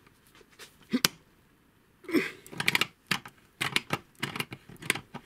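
Stanley MaxGrip self-adjusting pliers working an M10 nut held in a steel vise: sharp metallic clicks of the jaws and gear mechanism. There are a few clicks at first, a short pause, then a rapid run of clicks and rattles from about two seconds in.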